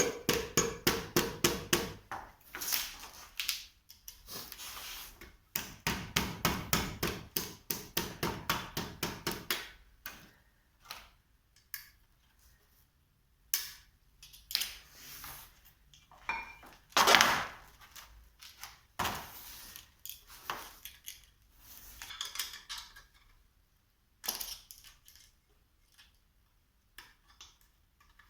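Hammer blows on steel in quick runs of about five strikes a second, the first run ringing. Scattered clanks of metal parts and tools follow, typical of knocking apart a hydraulic cylinder.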